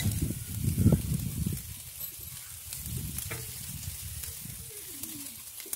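Bone-in steaks and sausages sizzling over hot coals on a charcoal grill's wire grate, a steady hiss with a few faint clicks. A low rumble covers the first second and a half, then drops away.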